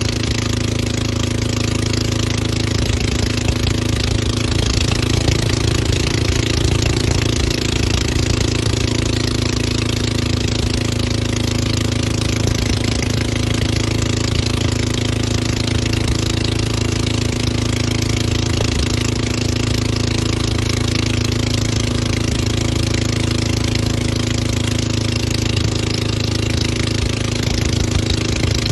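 Towing motorboat's engine running steadily at speed, a constant low hum under a loud rush of wind and water noise.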